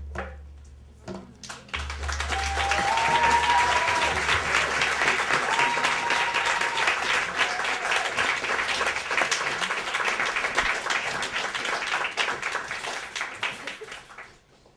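Audience applauding. The clapping swells in about two seconds in and fades away near the end, with a couple of held high calls from the crowd over it.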